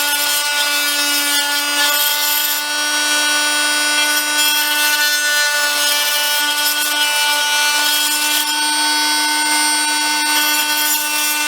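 Harbor Freight oscillating multi-tool running with a steady hum, its blade sawing through the thin plastic top of a project box.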